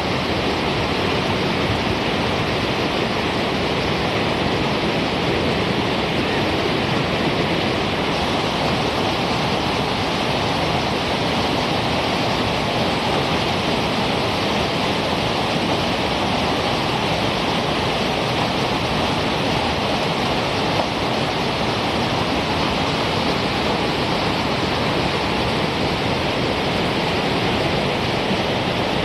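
Whitewater river rapids rushing, loud and steady throughout.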